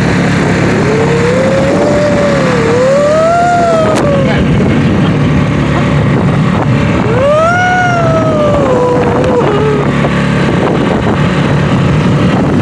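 Small outboard motor running steadily, driving an inflatable dinghy over the water. Over it come two long sliding tones that rise and fall, about a second in and again about seven seconds in.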